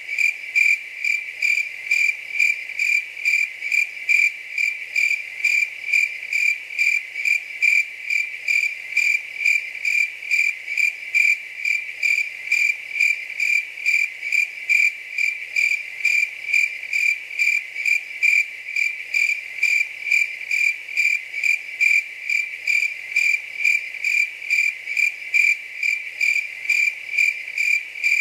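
A cricket chirping in a steady, even rhythm of about two high-pitched chirps a second.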